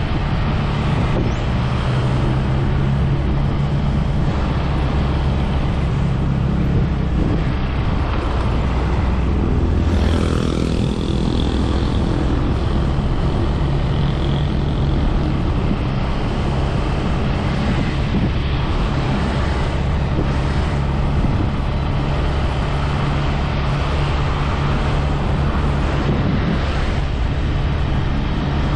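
Motorcycle engine running steadily on the move, under a constant rush of wind and road noise. The engine note shifts briefly about ten seconds in.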